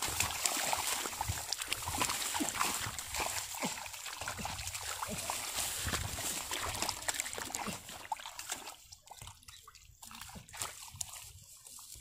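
Hands sloshing and splashing in shallow muddy paddy water and rustling through rice stubble: a busy run of small splashes and crackles that thins out about eight seconds in.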